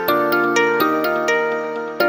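Gentle new-age background music: a quick, even run of struck notes, several a second, each one fading away.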